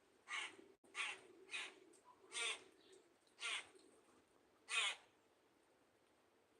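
A bird giving six harsh, raspy calls in a ragged series, each about half a second long, the last one the loudest; the weird-sounding calls of an unidentified bird.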